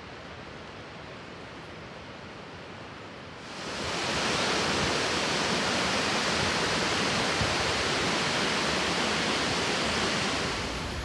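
A waterfall's steady rush in a river gorge, fairly quiet at first, then jumping much louder and brighter about three and a half seconds in and easing slightly near the end.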